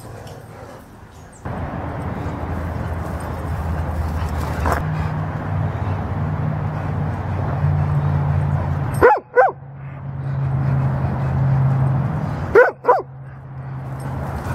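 A dog barking: two short double barks a few seconds apart, over a steady low hum.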